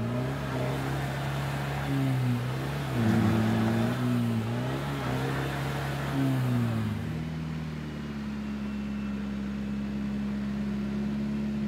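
Off-road 4x4 engine revving unevenly in repeated surges, then settling to a steady, lower idle about seven seconds in.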